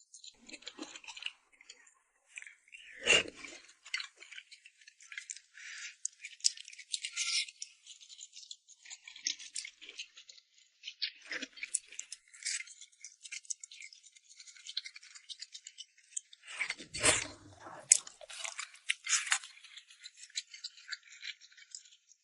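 Close-miked eating sounds of rice noodles in red chili oil being chewed: a steady run of wet, crackly mouth clicks, with two louder, deeper noises about three seconds in and again about seventeen seconds in.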